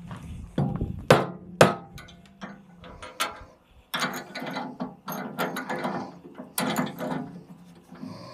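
Hammer blows on a wooden block, knocking a steel bolt-on tooth bar tight onto a tractor loader bucket's cutting edge: two sharp strikes about a second in, then a few lighter knocks. From about four seconds in comes a steady metal rattling and grating as the bar is shifted by hand against the bucket.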